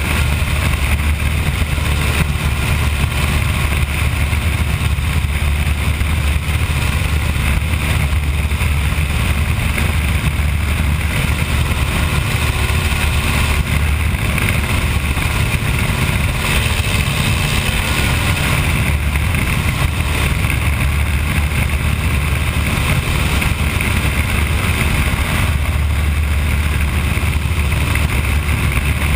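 De Havilland Tiger Moth biplane's four-cylinder inverted inline engine and propeller running steadily in flight, with slipstream wind rushing over the open cockpit.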